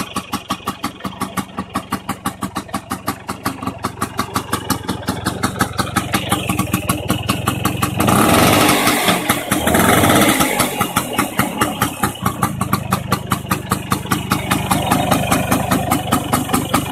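Vespa Sprint VLB's two-stroke single-cylinder engine idling with even, rapid pulses. It is revved briefly about eight seconds in, then settles back to idle.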